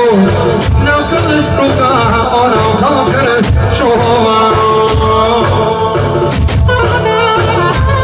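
Loud amplified live dance music: a male singer on a microphone with a wavering, ornamented melody over a steady beat.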